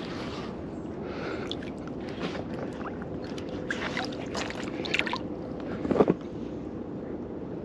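Shallow water sloshing and splashing around a large carp being released from a wet sling, with small splashes and drips a few seconds in and a louder splash about six seconds in.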